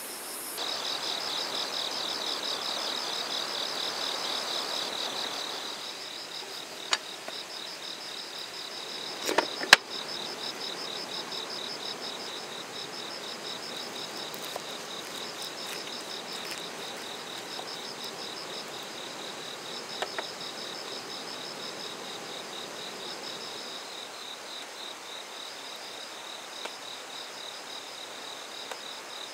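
Insects chirping in a fast, steady pulsing trill, with a couple of sharp knocks about ten seconds in and a few fainter clicks.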